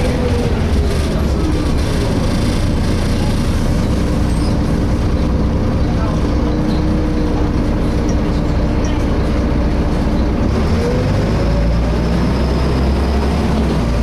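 Cabin sound of a Volvo B7LA articulated bus under way: a steady low running rumble with a whining tone over it. The whine falls in pitch, holds level for several seconds, then rises again about ten seconds in as the rumble grows louder.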